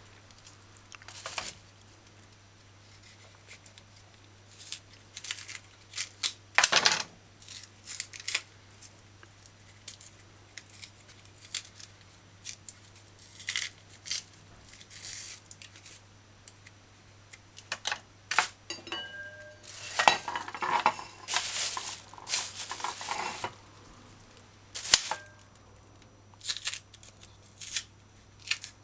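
Green banana skins being pried and torn off by hand in strips: a string of short, irregular tearing and rustling noises with a few sharp clicks and knocks, over a faint steady low hum.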